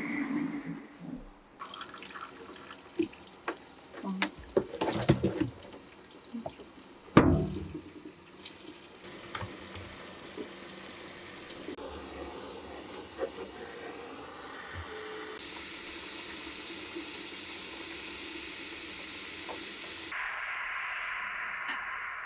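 Handheld shower head spraying water onto a toy poodle puppy in a grooming tub, a steady hiss of spray that shifts in tone several times and turns brighter near the end. A few knocks and clatters in the first several seconds, the loudest about seven seconds in.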